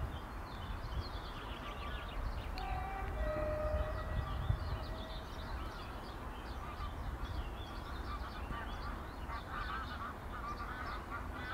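Brief horn tones from a distant NS Koploper electric train about three seconds in, over a low rumble. Small birds chirp throughout and waterfowl call near the end.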